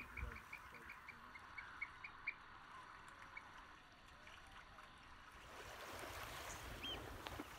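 Faint bird calls: a rapid run of short, high piping notes, about six a second, that stops after about two seconds. Later comes a steadier hiss of wind or water, with one short whistled note near the end.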